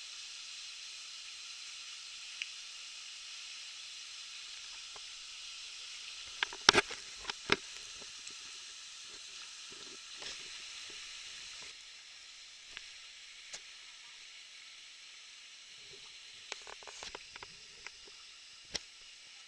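River water rushing past an inflatable tube through rapids, a steady hiss that drops a little about halfway through. A cluster of sharp knocks comes about six to seven seconds in, and more near the end.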